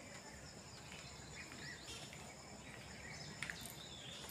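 Faint outdoor evening ambience: scattered short bird chirps over a thin, steady, high insect tone and low background hum, with a couple of soft clicks about three and a half seconds in.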